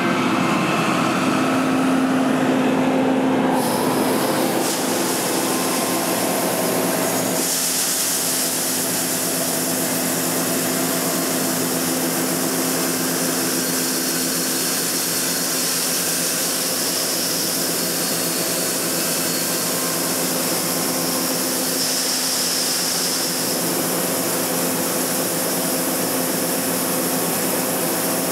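Combine harvester running steadily while harvesting soybeans: a constant machine hum under a hiss that turns brighter about four seconds in and again about seven seconds in.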